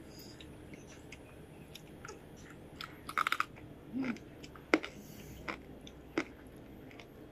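Chewing crispy fried fish: scattered small crunches and mouth clicks, with a quick run of crunches about three seconds in and a short low hum a second later.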